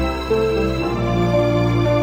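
Slow instrumental background music with held chords over a bass, shifting to a new chord about a second in; no singing.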